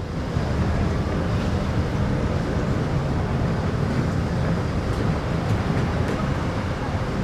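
Amusement park ambience heard from a distance: a steady wash of noise with a heavy low rumble.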